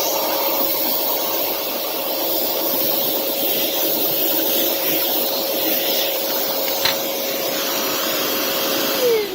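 WORX WX030L 20V cordless car vacuum running at its full-power setting: a steady motor whine over rushing airflow hiss, with one brief click about seven seconds in. Near the end it is switched off and the whine falls in pitch as the motor spins down.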